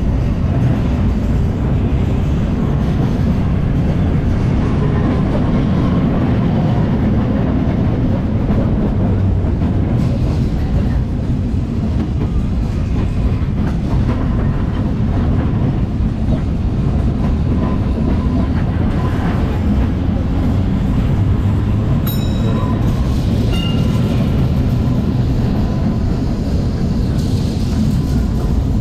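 Tram No. 47, a 1906 double-decker, rolling along its track, heard from its roof: a steady running rumble of the wheels on the rails. A brief high-pitched tone sounds about three-quarters of the way through.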